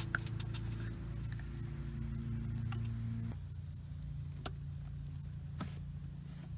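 Rubber PCV hose being fitted back onto a newly installed PCV valve: small handling ticks, then two sharp clicks about a second apart as it seats, over a steady low hum.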